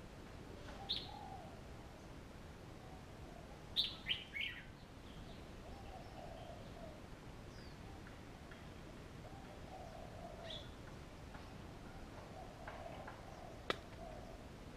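Red-whiskered bulbul giving short, sharp chirps: one about a second in, a quick cluster of three or four around four seconds in, and another later on. Fainter, lower warbling phrases recur in the background, and a single sharp click comes near the end.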